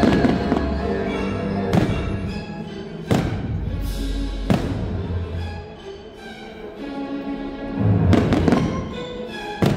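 Orchestral show music with strings, punctuated by sharp bangs of fireworks bursting overhead: single bangs spread through the first half and a denser cluster near the end.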